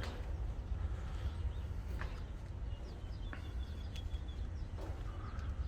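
Wind rumbling on the microphone, with a few faint bird chirps about midway through.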